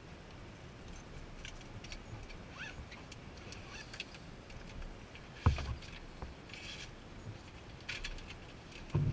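Handling noise in the cockpit of a shut-down Cessna 172: scattered small clicks and rustles of gear being moved, with one sharp thump about five and a half seconds in as a padded bag is set on the glareshield.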